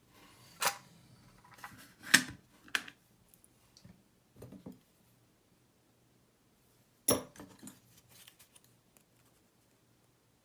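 Small metal clicks and taps from handling the parts of a disassembled Goal S pin-tumbler lock. There is a scatter of sharp ticks in the first three seconds, a duller knock near four and a half seconds, and a louder click about seven seconds in, followed by a few faint ticks.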